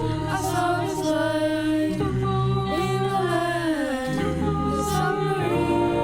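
A group of voices singing in harmony, a cappella style, holding long notes over a low bass line, with a slow downward slide in pitch around the middle.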